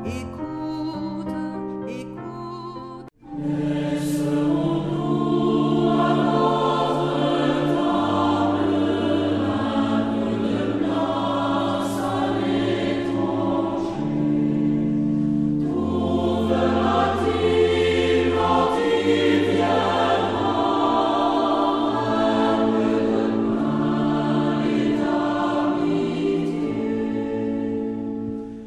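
Choir singing a French Christian hymn in sustained chords. The music drops out briefly about three seconds in and comes back louder.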